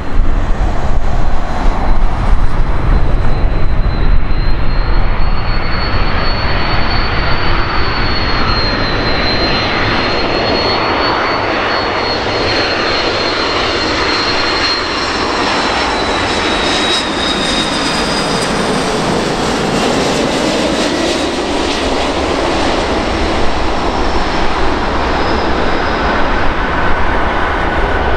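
Airbus A330-300's twin GE CF6-80E1 turbofan engines on landing approach: steady jet noise with a high fan whine that slowly falls in pitch as the airliner flies past.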